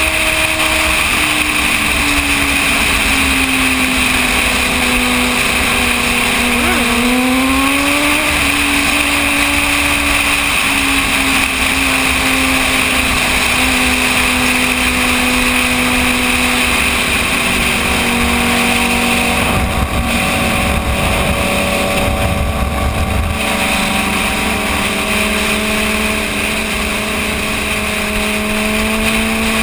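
Motorcycle engine running at road speed with steady wind noise; the engine pitch dips and climbs again about seven seconds in, then holds and sinks slowly.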